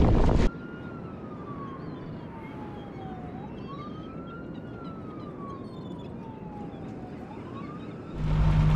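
An emergency-vehicle siren wailing: a single tone that falls slowly, then sweeps quickly back up, twice over about eight seconds, with faint bird chirps above it. Loud wind and water noise from the sailing yacht cuts off about half a second in, and returns near the end with the steady hum of the boat's engine.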